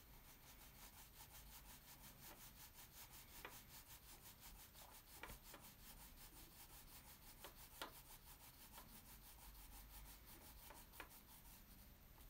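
Faint, light rubbing of a wax crayon stroked back and forth across drawing paper, with a few small ticks scattered through.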